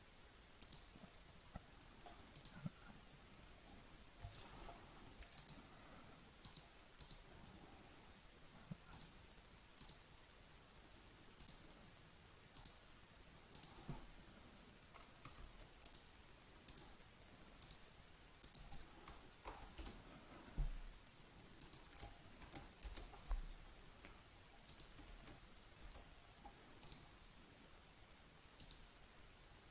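Faint, scattered clicks of a computer mouse, irregularly spaced, with a louder cluster of clicks and low knocks about two-thirds of the way through.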